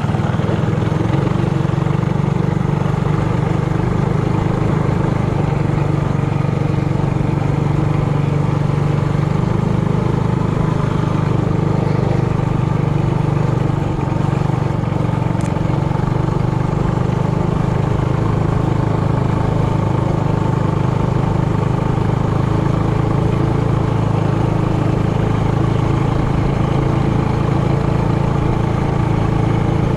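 Trailmaster Hurricane 200X mini bike's single-cylinder four-stroke engine running steadily, its pitch holding level.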